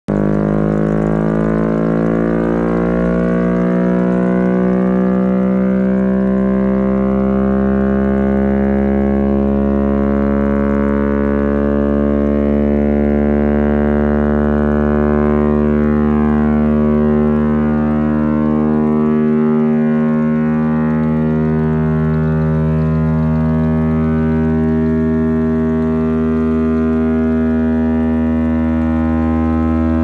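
Vintage Chrysler air raid siren, repowered with a replacement motor, sounding a steady, many-toned wail. Its pitch climbs slightly over the first few seconds and then holds, over the low drone of the motor that drives it.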